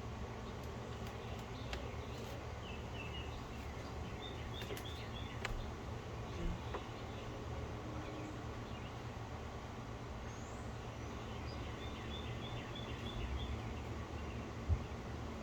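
Small birds chirping in short quick runs of high notes, with a few pauses between the runs, over a steady low background rumble.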